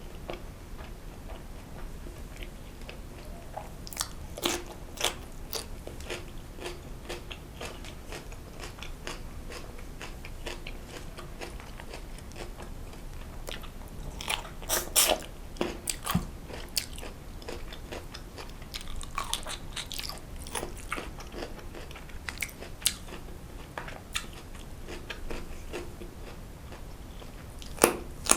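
Close-miked eating: a person biting and chewing food, with sharp crunchy clicks. The clicks come in loud clusters about four seconds in, around the middle, and again near the end.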